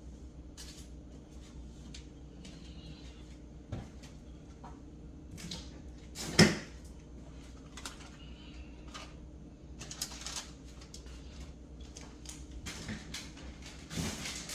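Scattered clicks and knocks of fridge drawers, shelves and food containers being handled while a refrigerator is emptied and cleaned out, with one loud knock about six and a half seconds in. A steady low hum lies underneath.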